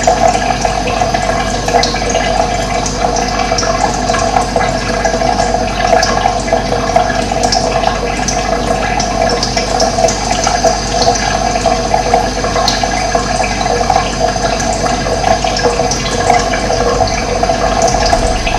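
Running water flowing steadily with a constant rushing sound.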